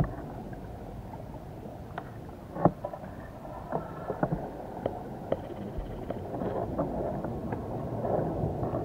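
Underwater ambience at a baited crab wheel: a steady, muffled rush of water with scattered sharp clicks and knocks, the loudest nearly three seconds in.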